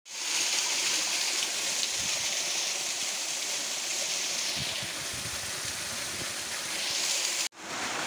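Steady rush of flowing stream water. It breaks off abruptly for a moment near the end, then resumes.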